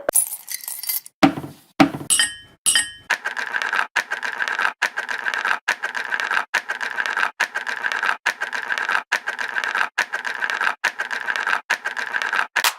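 A string of short sound-library effects: a few clicks and two brief electronic beeps, then a long run of fast, evenly spaced rattling pulses that stops just before the end.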